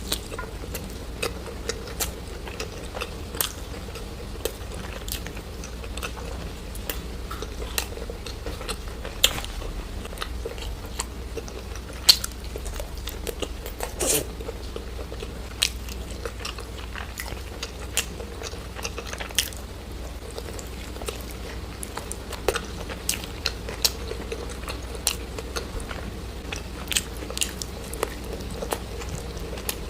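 Close-miked ASMR eating: crunchy bites and chewing, an irregular run of sharp crackly crunches, over a steady low hum.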